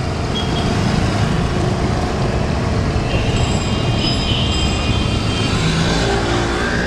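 Steady, loud street traffic noise heard from a moving cycle-rickshaw: motorbikes and other traffic passing, with a low rumble throughout and a few faint high tones about three to five seconds in.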